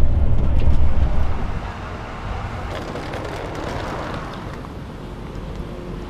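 Low engine and road rumble inside a moving bus, which drops away about a second and a half in to a quieter, even city traffic noise.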